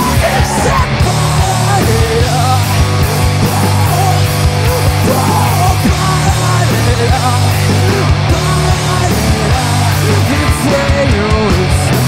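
Rock band playing live: electric guitars, bass and a drum kit with cymbals, loud and dense without a break.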